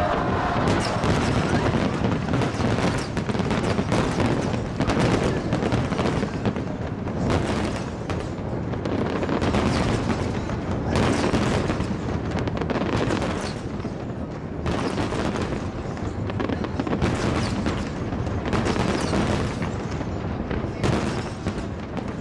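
Large aerial fireworks display firing continuously: a dense barrage of overlapping booms and crackling bursts with no let-up.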